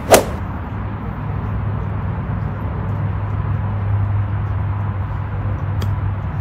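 A sharp, loud knock just after the start, then a steady low hum. Near the end a golf club chips the ball with a short, crisp click.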